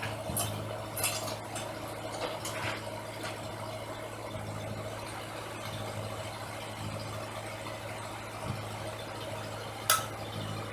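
An engine idling steadily, with a few light clicks about a second or two in and one sharp click near the end.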